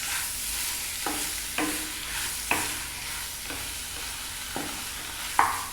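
Chicken pieces in masala sizzling in a pan, with no water added, while they are stirred. The stirring utensil scrapes and knocks against the pan about every second, the loudest stroke near the end.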